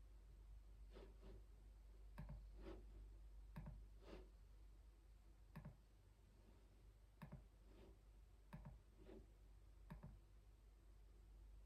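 Slow, faint keyboard typing: about a dozen separate keystrokes at an irregular pace, roughly one a second, some in quick pairs.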